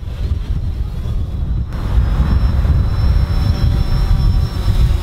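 DJI Phantom 4 quadcopter descending to land. Its propellers whine in a steady high tone that comes in a little under two seconds in, over heavy wind rumble on the microphone.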